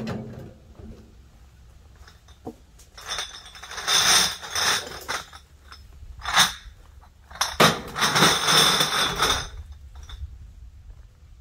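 Plastic garbage bags full of empty cans and bottles being lifted and loaded into a wheelbarrow: the bags rustle and the containers clink inside them, in several bursts, the loudest about four and eight seconds in.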